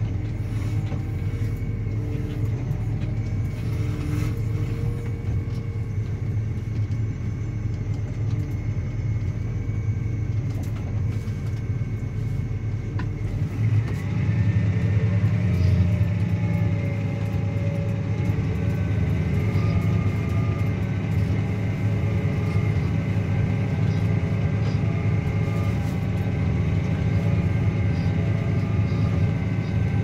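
Claas Axion 850 tractor engine running steadily with a Kuhn Varimaster reversible plough in tow. About halfway through, the engine note changes and grows louder as the plough goes into the ground and the tractor takes up the ploughing load.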